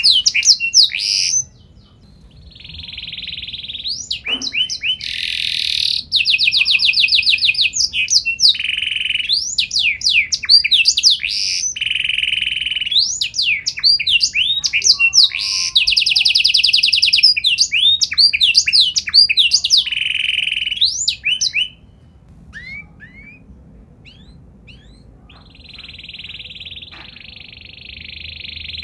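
Domestic canary singing a long, varied song of rapid trills and fast sweeping whistles, with a short break about a second and a half in. The song drops to a few scattered chirps past the middle, then a long, even trill starts near the end.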